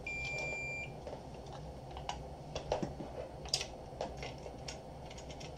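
A short steady electronic beep, typical of a digital multimeter's test tone, for just under a second at the start, then scattered light clicks and taps of a circuit board and meter probes being handled.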